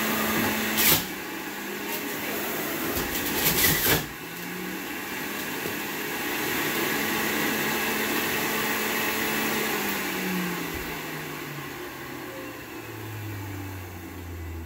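Oster juicer motor running with a steady hum while produce is pushed down the feed chute, with two loud grinding spells about one second in and around three to four seconds in. Over the last few seconds the motor winds down, its hum falling in pitch.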